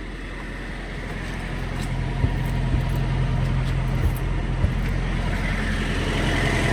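Thermo King trailer refrigeration unit's diesel engine running steadily, growing louder. A few light knocks are heard in the middle.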